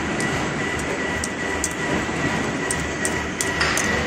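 Steel wire nail making machinery running: a steady mechanical clatter with a faint high whine and scattered sharp clicks.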